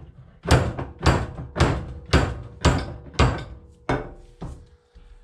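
Hammer blows on a van driveshaft part being knocked off the shaft: about eight sharp strikes, roughly two a second, with a faint ring after the last ones.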